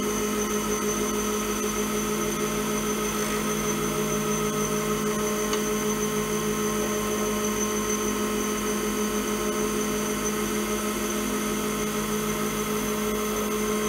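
Lathe running steadily with a constant motor whine while a turning tool takes light cutting passes over a spinning Alumilite cast-resin pen blank, shaving off excess CA glue.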